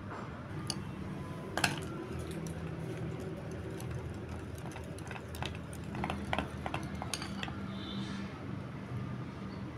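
A spoon and then a wire whisk stirring cream in a glass bowl, scraping and giving irregular light clinks against the glass, the sharpest about a second and a half in. A steady low hum runs underneath.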